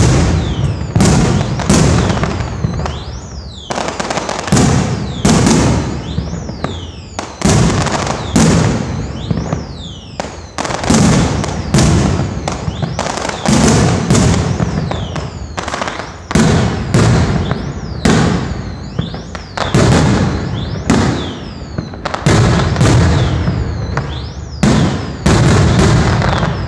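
Aerial fireworks shells bursting in quick succession, a loud bang every second or two, each followed by a crackling, rumbling tail. High falling whistles sound after many of the bursts.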